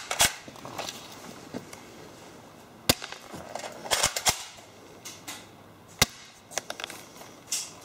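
Cyma HY017C spring-powered airsoft rifle being cocked and fired through a chronograph: two sharp shots about three seconds apart, with smaller clicks and rattles of the cocking action around them.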